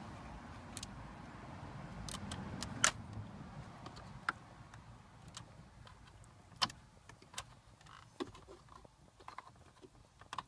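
Scattered sharp plastic clicks and rattles as wiring-harness connectors are unplugged from the back of a removed dashboard climate-control panel, the loudest click about three seconds in.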